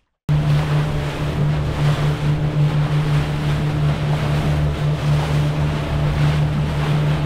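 Boat engine running steadily with the boat underway, a constant low hum under wind and rushing water. It cuts in abruptly just after the start.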